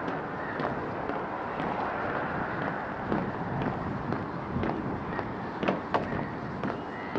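Footsteps of a person walking outdoors, heard as sharp footfalls about twice a second in the second half, over a steady background rush.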